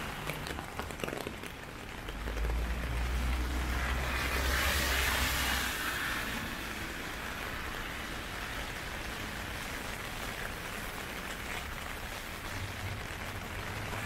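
Steady heavy rain from a typhoon downpour. A vehicle passes on the wet road from about two to six seconds in, a low rumble and a rising then fading tyre swish, and another engine hum comes in near the end.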